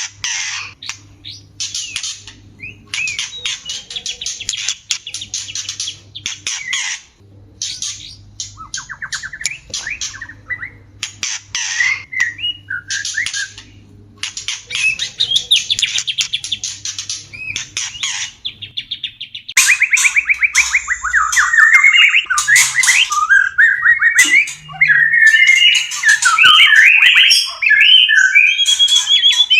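White-rumped shama (murai batu) mating calls: bursts of harsh, rasping chatter mixed with fast whistled trills, the calls used to bring shamas into breeding condition. The calling gets louder and denser about two-thirds of the way in.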